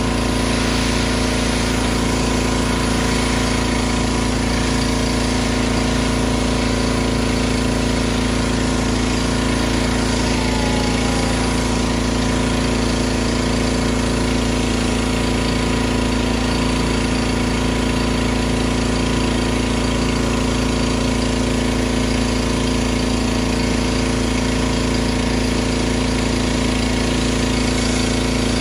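Craftsman gas pressure washer's small engine running steadily under load, with the hiss of the high-pressure spray hitting the concrete driveway.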